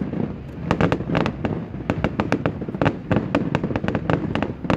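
Aerial display fireworks bursting in a rapid, irregular string of sharp bangs and crackles, about four or five a second.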